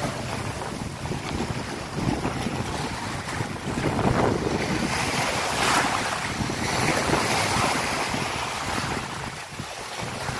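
Small waves breaking and washing up a sandy beach, with wind buffeting the microphone; the wash swells and fades every second or two.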